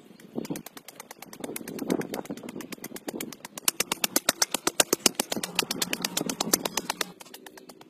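A small engine running with a rapid, even ticking beat that grows louder through the middle and drops away sharply near the end, along with scraping of dry soil being dug by hand.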